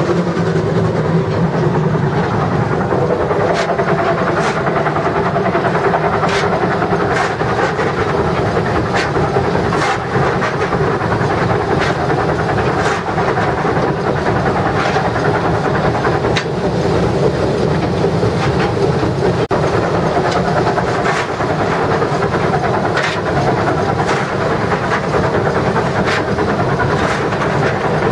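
Cab noise of the Swedish B3-class steam locomotive No.130 running with a train: a steady loud rumble and hiss, broken by sharp clicks and knocks at irregular intervals.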